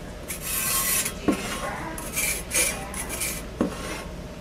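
Scratchy rubbing strokes of a squeeze-bottle paint applicator tip dragging along the surface of a ceramic platter, coming in short spurts. Two light knocks fall among them, about a second in and near the end.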